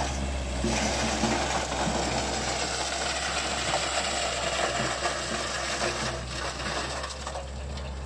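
Kubota L5018 diesel tractor running under load with a KRX193 rotary tiller churning dry soil: a steady low engine drone under a dense, gritty clatter of tiller blades and flung dirt. It eases off a little about six seconds in as the tractor pulls away.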